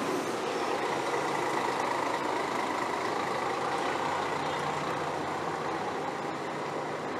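City bus engine running steadily close by, over general street traffic noise.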